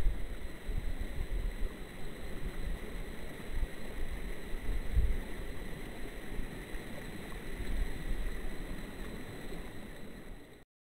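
Wind buffeting the microphone in uneven gusts over the steady rush of a river, with a faint steady high whine; the sound cuts off suddenly near the end.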